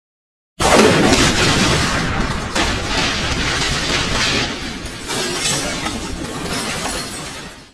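A sudden loud crash sound effect, like something shattering and exploding, starting about half a second in, rumbling on and slowly fading for about seven seconds before cutting off.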